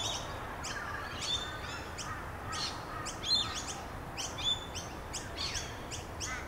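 Birdsong ambience: many small birds chirping in short, high calls, several a second, some with quick falling notes, over a steady hiss.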